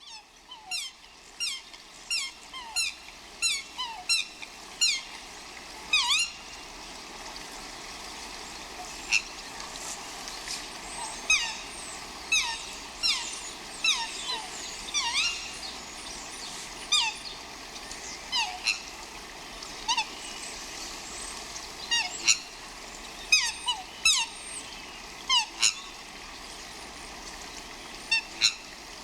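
A flock of swans calling: many short calls, each dropping in pitch, come in irregular runs of several at a time and often overlap, over a steady background hiss.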